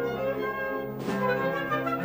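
Orchestral music on the film's added score, with brass holding long notes and a brief cymbal-like swish about a second in.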